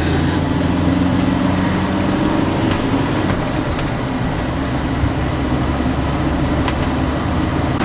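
Motorhome's diesel engine and road noise heard inside the cab at motorway speed: a steady engine drone under tyre and wind noise, with a few faint clicks.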